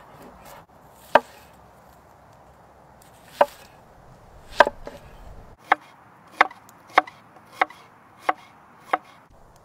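Large chef's knife chopping a red onion on a wooden cutting board, the blade knocking sharply on the board with each cut. A few scattered chops come first, then six evenly spaced slicing strokes, a little under two a second.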